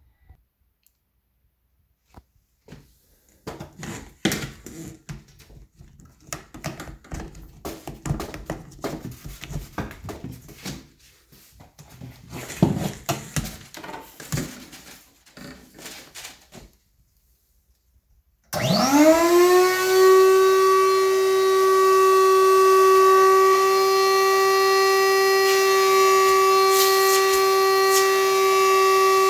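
Clattering and knocking of hose and fittings being handled, then about 18 seconds in an Allegro Champion MUA50 central vacuum motor starts, its whine rising quickly in pitch and settling into a loud, steady high whine.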